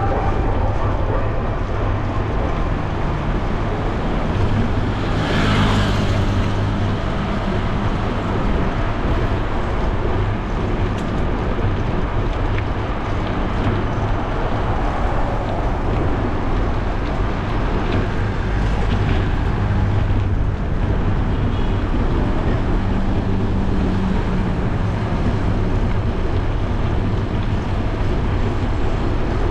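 Steady wind rumble on the microphone of a bicycle-mounted camera while riding, with car traffic on the road alongside; one vehicle passes close about five to six seconds in.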